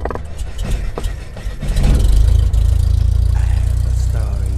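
Cinematic intro sound effect: a few sharp hits, then a deep rumble that swells about two seconds in and holds, with a short rising sweep near the end.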